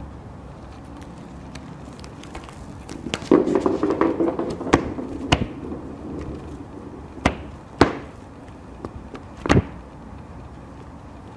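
A cat batting a hard ball toy across a woven mat: a rattling clatter about three seconds in, then a handful of separate sharp knocks.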